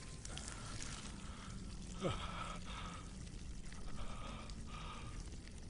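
Liquid trickling and splashing onto a dirt floor in several spurts, with a short falling vocal sound, the loudest moment, about two seconds in.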